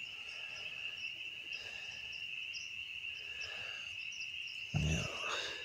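A steady high-pitched trilling chorus of calling animals in the background. About five seconds in, a short low thump with a rustle.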